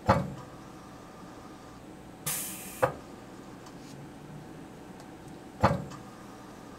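TMI short-span compression tester's clamps snapping shut on a paper strip with a sharp clack; about two seconds later a short hiss of released air and a click as the jaws let go, and near the end the clamps clack shut again for the next test.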